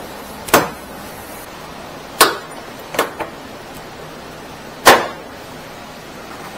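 A series of sharp knocks: five separate impacts, each with a short ringing tail. The loudest comes near the end and two fall close together in the middle.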